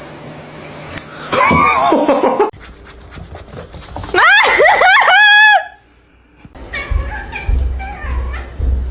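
A person laughing loudly and shrieking in high, swooping squeals, with softer laughter near the end.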